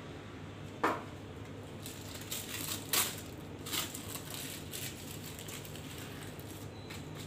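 Butter paper crinkling and rustling as a baked brownie is lifted out of its metal baking tin and the paper is peeled from its sides, with sharp clatters about a second in and again around three seconds.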